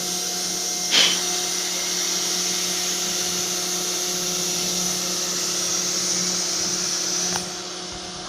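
CNC router spindle milling aluminium: a steady hum with a bright high hiss of the cutter in the metal. A sharp, short squeal about a second in. Near the end the cutting hiss stops suddenly and only the running spindle's hum carries on.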